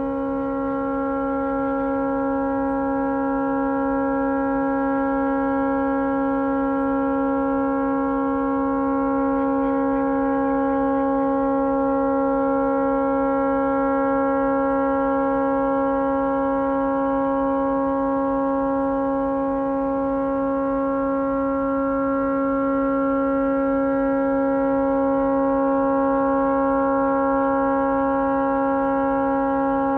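A tugboat's horn stuck on after a malfunction, sounding one steady, unbroken blast of several held tones with no pause or change in pitch.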